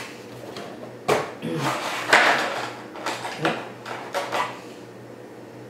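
Clear plastic packaging tray of a boxed vinyl figure set being handled: a few sharp plastic clicks and crinkly rustles as it comes out of its cardboard box and is worked open.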